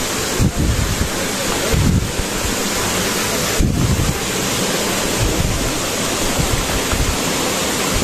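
Wind buffeting the microphone: a loud, steady rush with irregular low gusts that thump every second or so.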